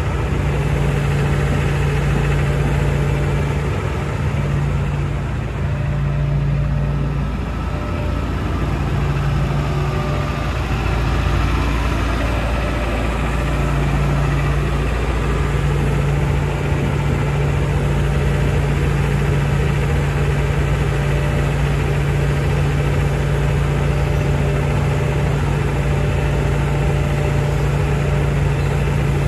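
Hitachi ZX170W wheeled excavator's diesel engine running steadily while the machine slews and works its boom and arm. Its steady low drone dips briefly several times in the first half.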